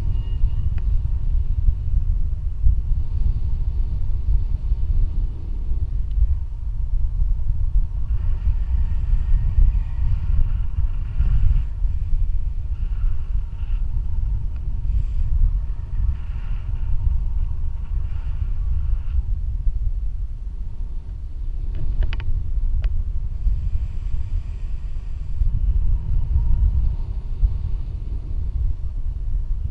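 Wind from tandem paraglider flight rushing over an action camera's microphone: a steady low rumble, with a couple of sharp clicks about two-thirds of the way through.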